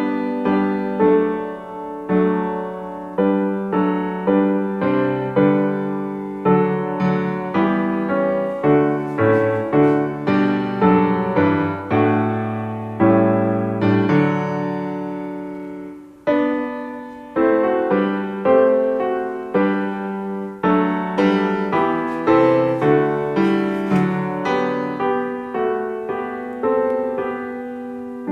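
Background piano music: single notes and chords struck one after another, each ringing and dying away.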